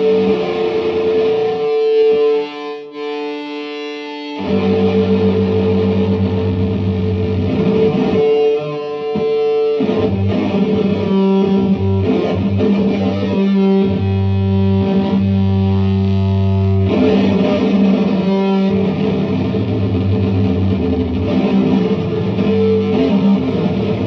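Electric guitar played through an EarthQuaker Devices Data Corrupter, a harmonizing fuzz/synth pedal: sustained, distorted synth-like notes with a deep low layer under them. That low layer cuts out twice, once a couple of seconds in and again near the middle.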